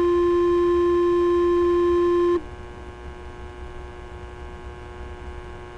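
Fire department two-tone sequential paging tones over a scanner radio: the long second tone holds steady and cuts off about two and a half seconds in, leaving the open channel's steady hum and hiss.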